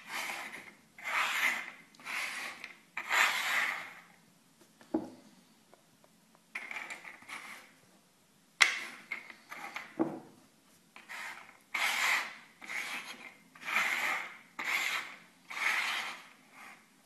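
Walnut-shell halves slid and shuffled across a wooden tabletop: a series of short scraping rubs, with a couple of sharp taps as shells are set down.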